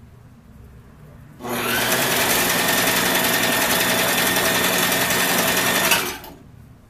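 Domestic electric sewing machine running at a steady speed while stitching curtain fabric. It starts about a second and a half in, runs evenly for about four and a half seconds, then stops near the end.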